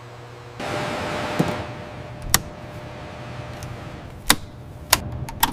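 A steady low hum, then a sudden rush of hiss about half a second in that fades away, followed by several sharp, irregularly spaced clicks.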